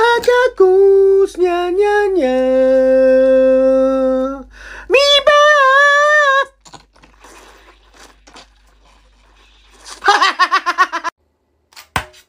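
A man's voice singing wordless held notes that step down in pitch to a low note held about two seconds, then a wavering note. This is followed by a quiet stretch of faint small clicks and a short choppy burst of voice near the end.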